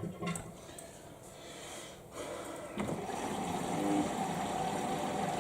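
Samsung EcoBubble washing machine starting its rinse cycle: after a few faint clicks, water begins rushing in steadily about three seconds in.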